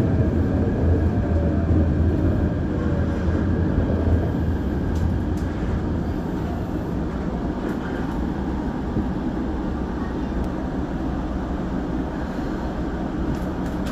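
Inside a former Hibiya Line electric train car as it slows into a station and stops. Running noise with a strong low hum and a falling whine over the first few seconds gives way to a steadier, quieter hum while the train stands.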